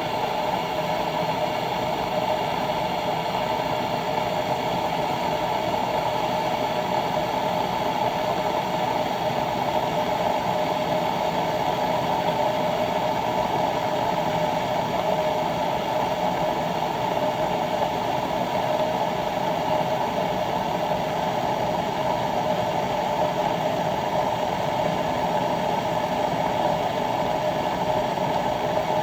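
Bodum gooseneck stainless steel electric kettle heating water: a steady hiss that holds even throughout.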